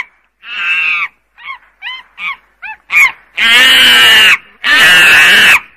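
Golden langur calling: a few short chirping calls, then two long, loud, harsh calls in the second half.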